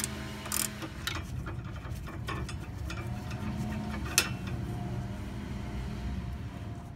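Flexible-head ratchet with a 17 mm socket clicking in quick strokes as it undoes a sway bar end link nut, followed by a single sharp metallic click about four seconds in as the loosened nut is taken off by hand.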